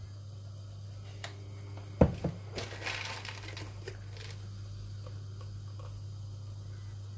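A sharp knock about two seconds in, then about a second of plastic-packet crinkling with a few small clicks as sultanas are taken out. A steady low hum runs underneath.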